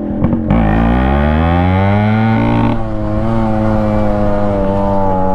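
Yamaha RX135's two-stroke single-cylinder engine pulling away in first gear with its exhaust silencer core removed, giving a raw, louder exhaust note. The pitch rises for about two seconds, drops suddenly, then holds steady.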